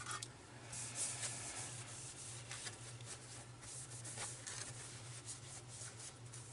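Blue paper shop towel rubbing and wiping over a CD-ROM drive's metal cover and circuit board in faint, irregular strokes, over a steady low hum.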